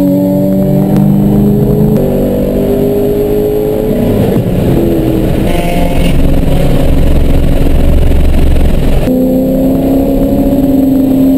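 In-car sound of a race-track car's engine under hard acceleration, its note climbing in pitch, spliced from several clips so the pitch jumps abruptly a few times. There is a rougher, less tonal stretch in the middle.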